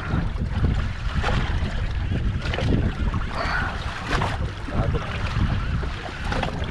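Wind buffeting the microphone over open sea, a steady low rumble, with small waves splashing irregularly against the drifting boat.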